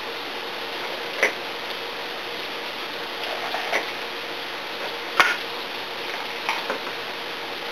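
Kitchen knife cutting a green bell pepper on a cutting board: a handful of short sharp knocks of the blade meeting the board, the loudest about five seconds in and two in quick succession near the end, over a steady hiss.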